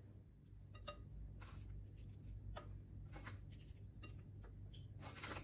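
Faint kitchen handling sounds: a few scattered soft clicks and taps as a ladle pours thick custard into a glass dish and fried bread slices are set into it, over a faint low hum.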